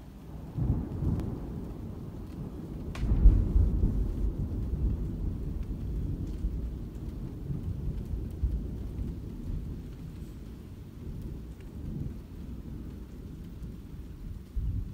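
Thunder rolling through a rainstorm: a low rumble builds under a second in, a sharp crack about three seconds in is the loudest moment, and the rumble then fades slowly, with a smaller swell near the end. Rain falls steadily underneath.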